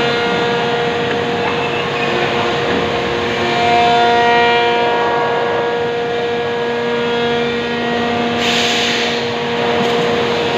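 Steady machinery noise in a timber-processing factory hall, with several constant tones over a noisy din, and a short hiss about eight and a half seconds in.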